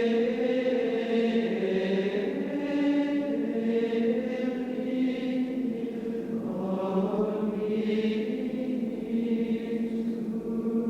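Slow soundtrack music of sustained, chant-like voices holding long notes that shift every second or two.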